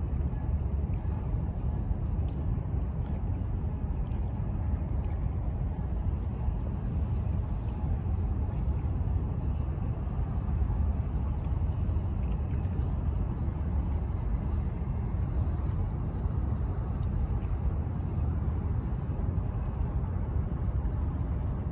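Steady low rumble of outdoor harbour ambience, even throughout with no distinct events.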